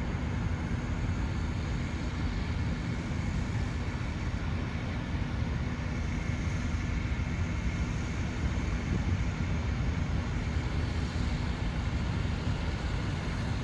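Steady low engine-like rumble with a faint constant hum.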